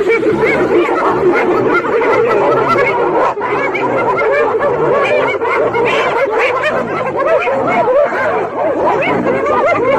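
Spotted hyena clan giggling, many short rising-and-falling calls overlapping densely, the excited cackling of hyenas mobbing a lioness.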